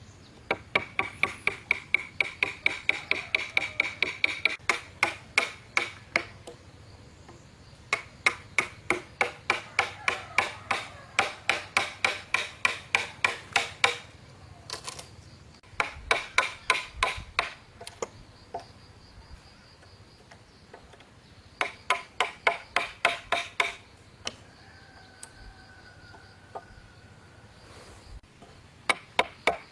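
Rapid, even strikes of a hand tool, about five a second, coming in bursts of a few seconds with short pauses between.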